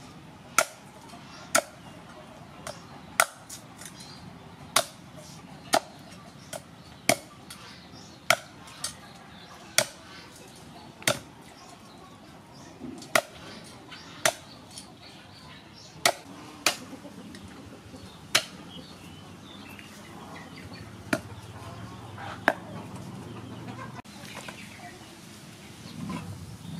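Cleaver chopping through raw cow legs on a round wooden chopping block: sharp single chops roughly one a second, irregularly spaced, stopping a few seconds before the end.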